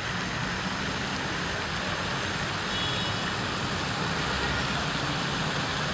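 Steady outdoor street ambience: an even wash of traffic noise with no distinct events.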